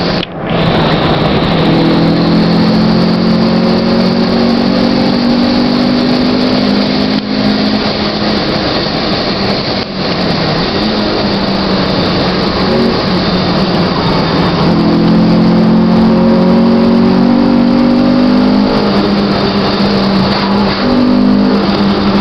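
Honda Civic engine under sustained hard acceleration, heard from inside the cabin: a loud engine note that climbs slowly in pitch, drops back about ten seconds in, then climbs again, over road and wind noise.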